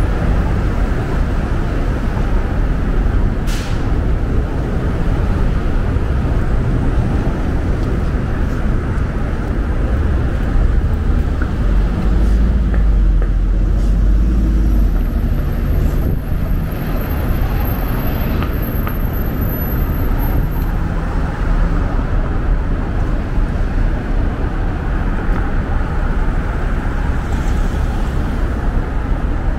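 Downtown street traffic: the steady engine and tyre noise of passing vehicles, with a deeper rumble that swells about twelve seconds in and eases off a few seconds later.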